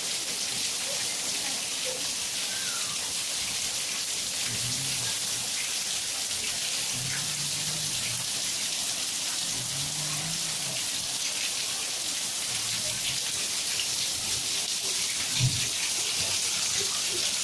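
Steady rain falling, an even hiss, with faint low voices in the background and one short thump near the end.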